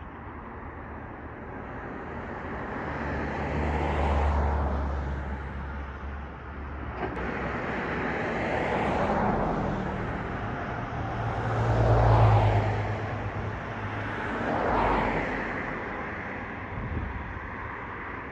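Vehicles passing one after another, each swelling and fading, with a low engine hum that comes and goes.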